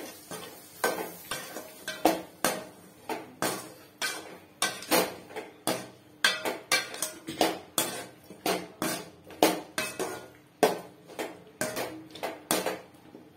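A perforated steel ladle scraping and clanking against a stainless steel kadai as cauliflower florets in masala are stirred, about two to three strokes a second. The strokes stop near the end.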